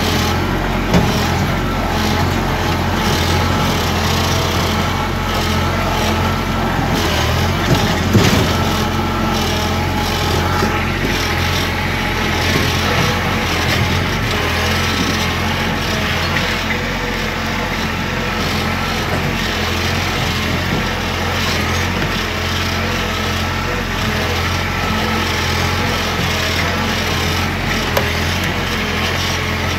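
Compact tractor engine running steadily under way as the tractor drives along a rough trail, with a few sharp knocks, a pair of them about eight seconds in.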